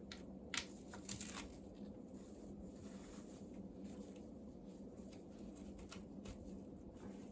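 A cat clawing at a scratching pole wrapped in hemp twine: a few sharp scratchy strokes about half a second and a second in, then fainter scratching over a steady low hum.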